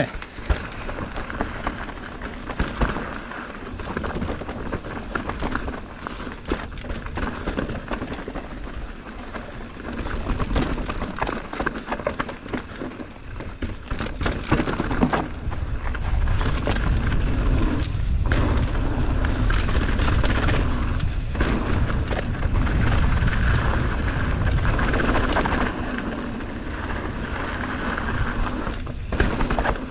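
Mountain bike running fast down a rough downhill trail: tyres on dirt, and the bike rattling and knocking over bumps, with a louder low rumble from about halfway through.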